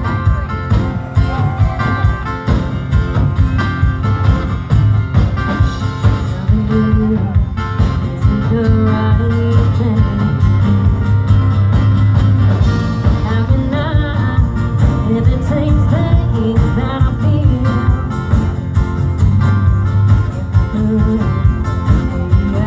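Live country band playing through a PA system, with drum kit keeping a steady beat under electric bass, guitars and keyboard, heard from the audience.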